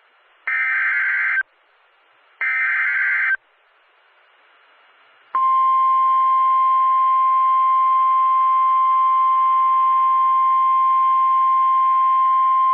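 Two bursts of Emergency Alert System SAME header data, a buzzy two-pitch digital warble about a second long each, repeated about two seconds apart. About five seconds in, the NOAA Weather Radio 1050 Hz warning alarm tone starts: one loud, steady, single-pitch tone that is still sounding at the end.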